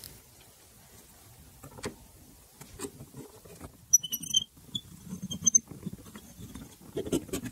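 A scratch-hardness tester's tip is dragged across a spray-painted metal test panel in a series of short scrapes and clicks, with brief high squeaks about four seconds in and again about a second later.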